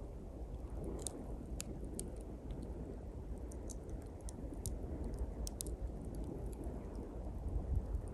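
Small campfire of pine twigs crackling, with scattered sharp pops and snaps, over the steady low rush of sea waves.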